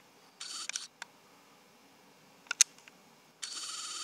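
Camera autofocus lens motor whirring in two short steady bursts, about half a second in and again for about a second near the end, as the focus hunts on a close-up. A couple of sharp clicks come between them.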